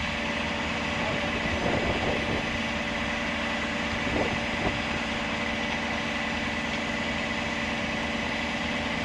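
Truck engine idling steadily, a continuous hum with a faint high whine, with a couple of faint brief sounds about two and four seconds in.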